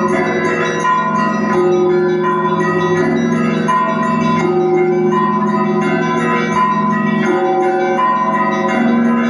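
Russian Orthodox monastery bells rung together in a continuous peal (zvon): several bells of different pitches struck over and over in a steady, repeating rhythm, each note ringing on into the next.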